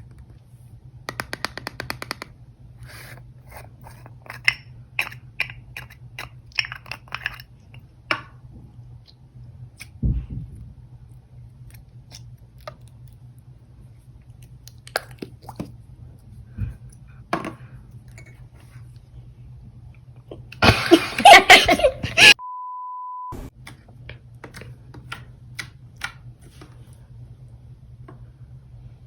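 Slime being squeezed and poked by hand, making runs of small wet clicks and crackles. About 21 s in comes a louder, denser burst of crackling, cut off by a steady beep lasting about a second.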